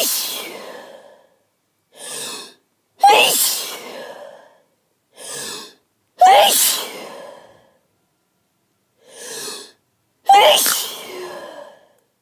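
A woman's sneezing fit: each sneeze opens with a sharp intake of breath, then comes a loud sneeze that trails off. It repeats about every three to four seconds, three full sneezes after the tail of one still dying away at the start.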